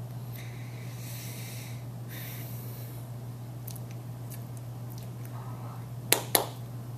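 Steady low hum of room or recording noise, with a soft hiss early on and two sharp slaps of hands striking together about six seconds in, a quarter second apart.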